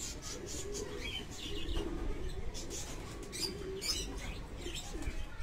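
Domestic pigeons cooing in low, repeated, wavering coos, with high chirps over them.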